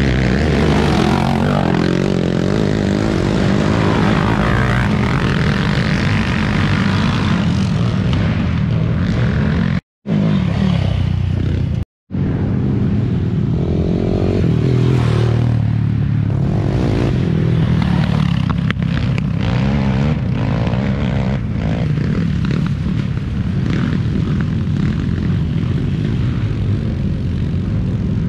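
Racing quad (ATV) engines running, with the sound cutting out briefly twice, about ten and twelve seconds in.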